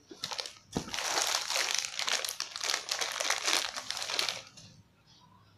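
Plastic bag crinkling as it is handled and lifted out of a cardboard box, with the plastic car trim clips inside shifting against each other. A single knock comes just before the crinkling, which lasts about three and a half seconds and then stops.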